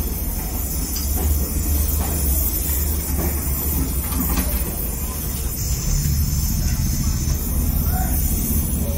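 Gas welding torch burning steadily as aluminium filler rod is melted into the crack in an aluminium motorcycle oil sump: a steady low rushing noise.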